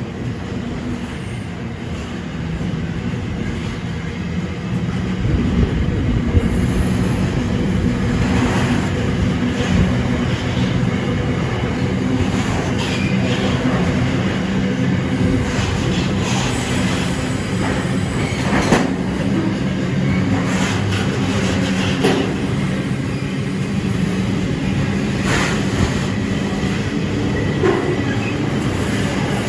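Container freight train's wagons rolling past: a steady rumble of steel wheels on rail, growing louder about five seconds in, with occasional sharp clicks as the wheels cross the rail joints.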